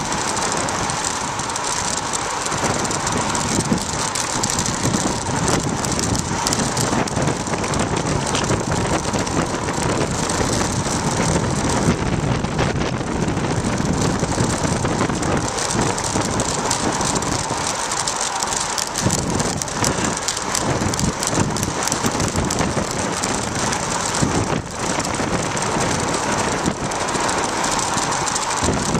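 Wind rushing over the microphone of a bicycle-mounted camera on a fast downhill run, with tyre noise and steady rattling and knocks from the homemade camera mount bouncing over the road.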